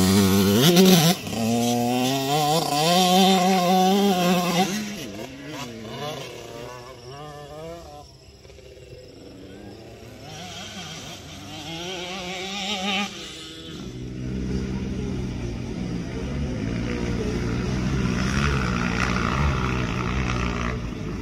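Kawasaki KX65 two-stroke dirt bike engine revving as it pulls away, its pitch rising and falling with the throttle, then fading into the distance and briefly swelling again. From about fourteen seconds in, a steadier, lower motorcycle engine sound takes over.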